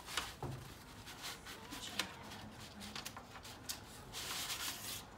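Paper and craft materials being handled on a table: scattered small clicks and taps, a sharper tick about two seconds in, then about a second of scratchy rustling near the end.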